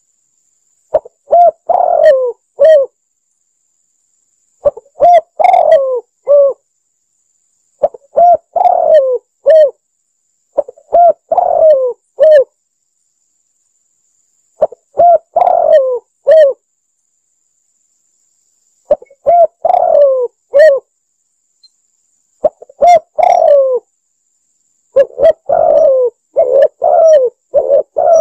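Spotted dove cooing: a repeated phrase of several low coos, each phrase about two seconds long, coming roughly every three seconds with silence between. Near the end the phrases run closer together.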